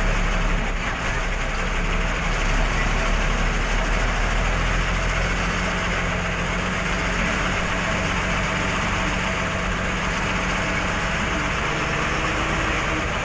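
The engine of a heavy vehicle running steadily, heard from inside its cab as it drives slowly through floodwater.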